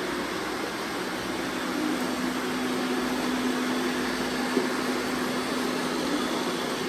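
Robot vacuums running: a steady whirring hiss, with a low hum that grows stronger about two seconds in.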